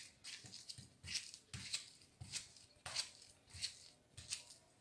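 Knife slicing a ripe plantain held in the hand into rounds over a bowl: a faint, short snick about every two-thirds of a second, one per cut, as each round comes off.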